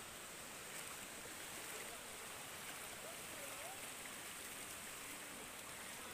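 Faint steady hiss, with faint distant voices rising and falling now and then.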